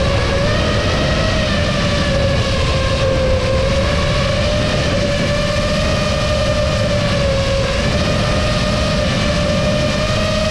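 Brushless motors and propellers of an FPV racing quadcopter on a 6S battery, whining at a fairly steady pitch that wavers slightly with throttle, over a low rushing noise, heard from the onboard camera on the drone.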